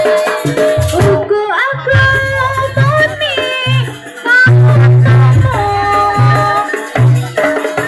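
Loud jaranan folk music played through a large loudspeaker system: a wavering melody line over heavy low beats that stop and start, with a rattle-like percussion layer.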